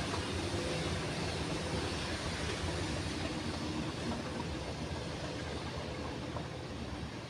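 Class 37 diesel-electric locomotives with English Electric V12 engines running as a rail head treatment train pulls away, a steady rumble that slowly fades.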